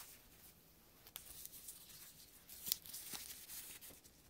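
Faint rustling of a cotton T-shirt being handled and turned over by hand, with a few soft ticks.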